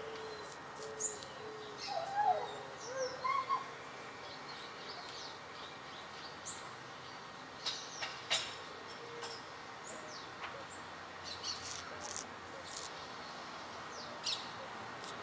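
Several wild birds calling: short low calls and a few curving whistled notes in the first few seconds, then scattered short high chirps, over a steady outdoor background noise.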